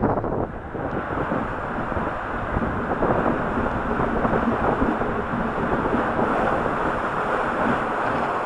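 Steady rushing noise of water and wind over the microphone during a waterslide ride.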